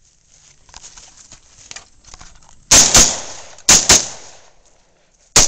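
AR-15 rifle firing: after a few seconds of faint rustling, two quick pairs of loud shots about a second apart, each shot with a short echoing tail, then another shot near the end opening a faster string.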